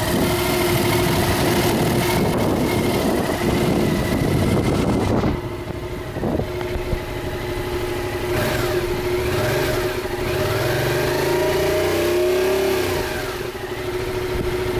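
Yamaha XSR700's 689 cc parallel-twin engine idling, with the revs rising and falling briefly about two-thirds of the way through. A louder rushing noise lies over it for the first five seconds or so.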